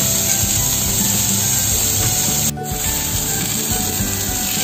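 Rolled pork leg sizzling in hot oil in a stainless steel frying pan, a steady hiss as the skin side browns, briefly dipping about two and a half seconds in.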